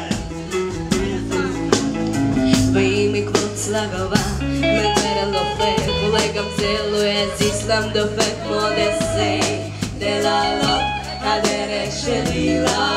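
Live band music: a woman singing over an electric guitar and low bass notes, with a steady beat.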